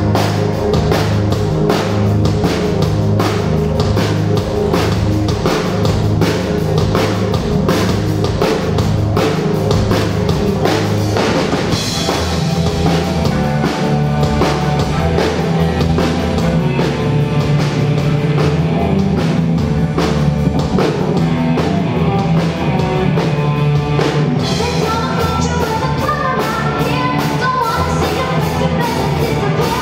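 Live school rock band playing: drum kit keeping a steady beat under bass, electric guitars and keyboard, with a girl singing lead. The band moves into a new section about twelve seconds in, and a higher guitar line comes in near the end.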